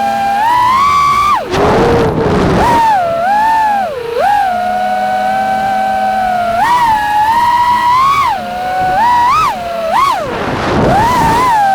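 FPV freestyle quadcopter's brushless motors and propellers whining, the pitch rising and falling with each throttle change. There are short rushing noises about a second and a half in and again near the end.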